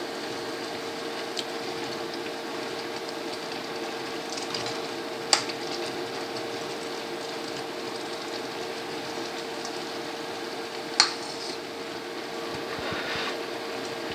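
Pot of instant noodles and cabbage boiling: a steady bubbling hiss with a steady hum under it, broken by two sharp knocks about six seconds apart.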